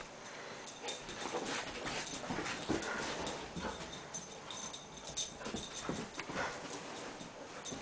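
A dog at play with a toy, with scuffling and frequent sharp clicks and knocks.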